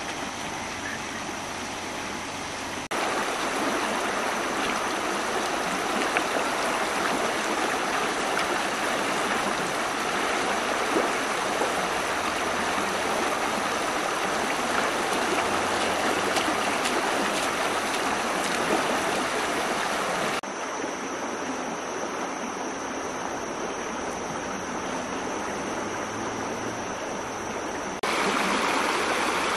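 Shallow river rushing steadily over rocks in a riffle, its level stepping abruptly louder and quieter a few times.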